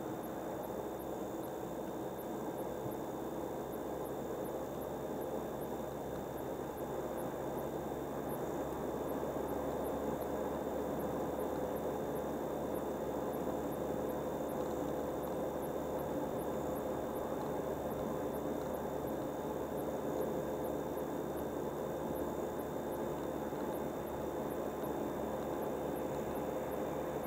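Car driving on a highway: steady road and engine noise, with a faint high ticking repeating about twice a second.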